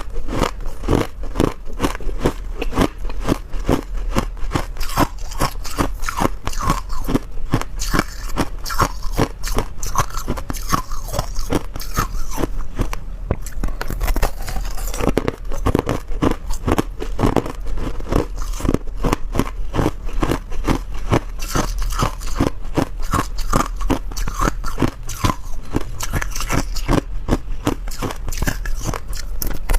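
Person biting and chewing hard ice or crushed ice close to the microphone: a rapid run of sharp, loud crunches, several a second.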